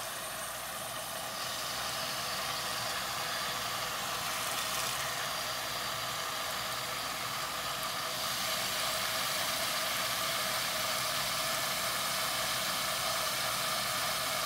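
Hot tap water pouring in a steady stream into a plastic basin of water and wool-scouring detergent, splashing and frothing up suds.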